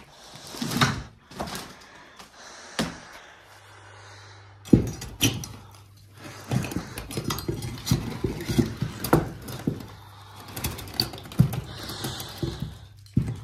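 Steel pry bar knocking and scraping against the wooden boards and wire mesh of a board-clad column, in a rapid run of knocks that begins about five seconds in, after a few scattered knocks.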